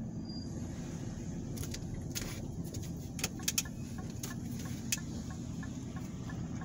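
Inside a car's cabin while driving slowly: a steady low rumble of engine and road noise, with a few light, irregular clicks and rattles in the middle.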